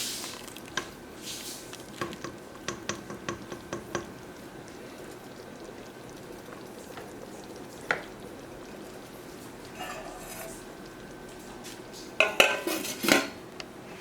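A spoon stirring soup in a pot, knocking and scraping against the pot: a run of light knocks in the first few seconds, a single knock near the middle, and a louder clatter near the end.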